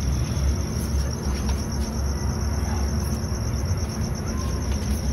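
Crickets trilling steadily, a fast-pulsing high tone, over a steady low rumble, with a few faint clinks of a spoon serving rice onto a plate.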